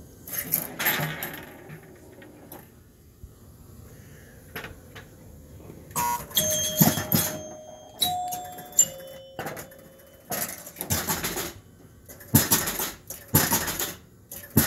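Gottlieb Cleopatra electromechanical pinball machine in play: bursts of relay and score-reel clatter, with its score chimes ringing between about six and ten seconds in.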